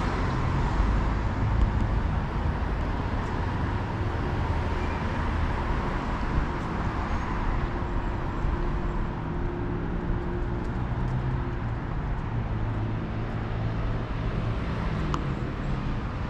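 Steady road traffic noise: cars running on a city street, with a low engine hum that is a little louder in the first couple of seconds.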